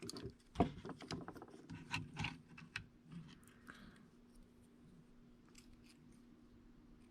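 Small plastic drone parts being handled and fitted together by hand: a run of light clicks and taps over the first three seconds or so, then only a faint steady hum.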